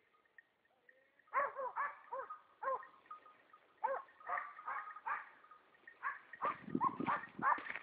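Dogs barking at a distance in a string of short, quick yelps, sparse at first and coming thick and fast near the end.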